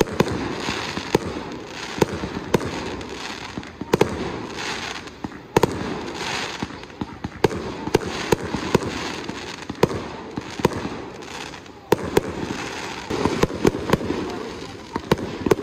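Aerial fireworks display: shells launching and bursting in many sharp bangs that come in an uneven stream, several a second at times.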